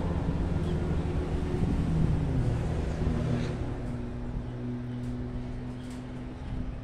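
An engine hums steadily, its note stepping higher about three seconds in and growing a little fainter toward the end.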